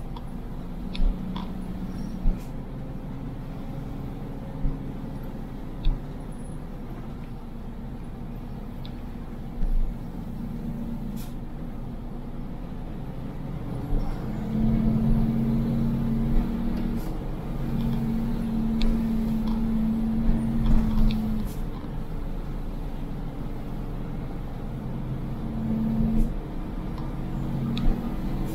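Vehicle engine and road noise during a drive down a mountain road: a steady low drone whose pitch shifts, louder for several seconds in the middle, with occasional short knocks and rattles.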